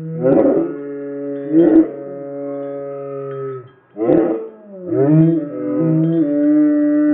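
Two Siberian huskies howling, slowed by slow-motion playback so the howls come out deep and drawn out. Long held howls break off and start again several times, and two voices overlap in the second half.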